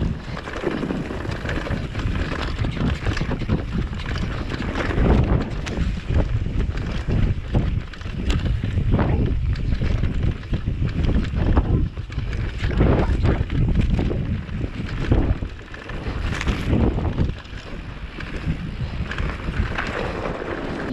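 Commencal V4.2 downhill mountain bike descending a rough trail. Wind buffets the microphone steadily, and the bike clatters and knocks over bumps again and again.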